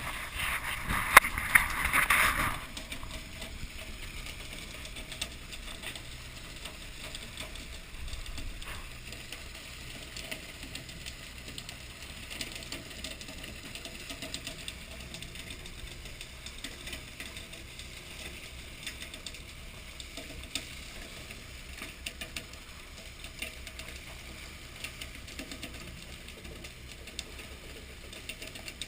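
Fishing boat's engine running steadily, with scattered clicks and knocks. A loud rushing noise fills the first two seconds or so.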